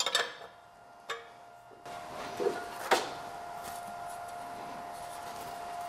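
Sharp metallic clinks of a wrench and steel hold-down clamps being loosened on a milling machine table, then a couple of knocks as a glass-reinforced plastic sheet is handled, over a steady hum.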